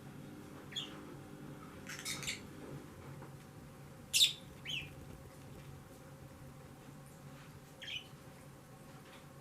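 Pet parrots giving a handful of short, high calls, spaced a second or more apart, the loudest about four seconds in.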